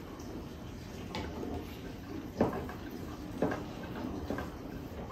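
Close-up eating sounds of a meal of adobo and rice: soft wet handling and chewing noises, with a few sharp clicks of tableware, the loudest about two and a half seconds in.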